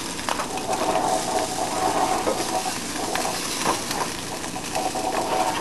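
Eggs sizzling in margarine in a frying pan on an electric coil burner set just below high, with a few knocks and scrapes as the pan is shifted on the coil.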